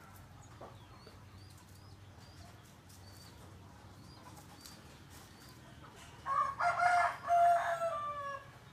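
A rooster crows once, about six seconds in, one call of roughly two seconds that ends falling in pitch. Faint high chirps of small birds come before it.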